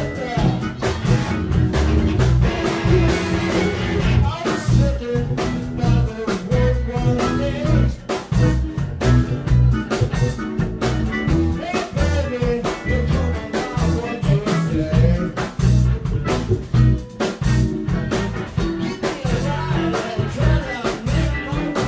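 Live band playing a boogie-style rock number: drum kit, electric bass, electric guitars and keyboards together at a steady driving beat.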